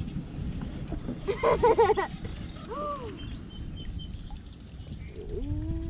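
Wordless human vocal sounds: a wavering, warbling cry about a second and a half in and a short 'ooh' about three seconds in, over a steady low rumble.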